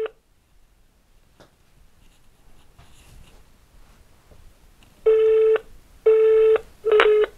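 Telephone line tones heard through a phone's speaker while the call is held for transfer: identical short beeps of one steady pitch. A beep is ending right at the start, then there is a quiet gap of about five seconds, then three more beeps about a second apart near the end.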